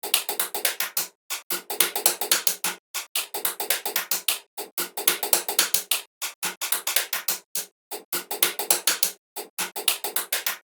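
A rapid series of sharp clicks or taps, about six to eight a second, in runs broken by short pauses.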